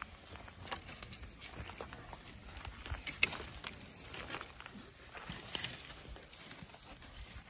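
African elephant moving through a dead tree's branches: irregular cracks and snaps of twigs and wood with leafy rustling, the sharpest snap about three seconds in.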